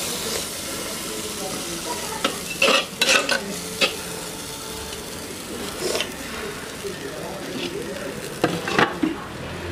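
Metal ladle stirring a thick kootu in a clay pot, scraping and knocking against the pot's sides several times, over a steady sizzle of hot tempering oil mixed into the kootu.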